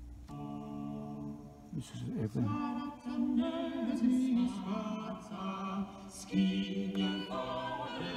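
Music with sustained singing playing from a radio broadcast through a Pioneer SX-550 stereo receiver's speakers: its sound output is restored now that the bad solder joints under the muting-circuit power pins are fixed.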